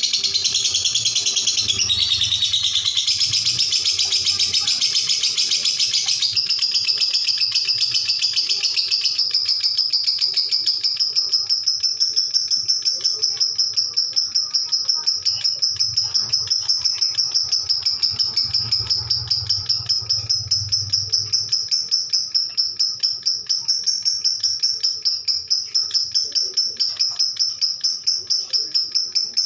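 Lovebird giving a long unbroken 'ngekek': a high, rapid rattling trill that never pauses. It is broader and harsher for the first several seconds, then settles into a steady, even, pulsing high trill.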